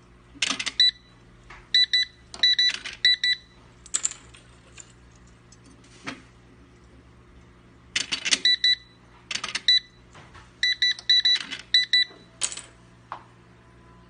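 Electric door lock's RFID card reader beeping while ID cards and key fobs are registered: quick runs of short, high beeps in two groups several seconds apart. Sharp clicks and rattles of the plastic fobs and the handled reader come in between.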